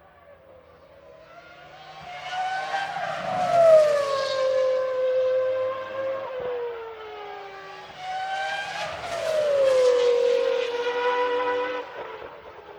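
Two race cars passing one after the other, each at high revs. Each engine note swells and then drops in pitch as the car goes by.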